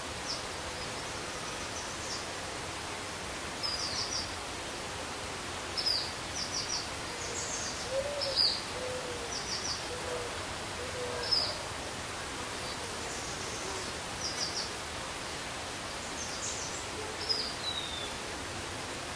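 Steady outdoor background hiss with scattered short, high chirps, some in quick runs of three, and a few soft, low hoot-like calls around the middle.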